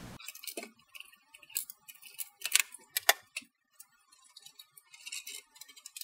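Scattered light clicks and small rattles of a computer tower being handled as its side panel is taken off, the sharpest clicks about two and a half and three seconds in.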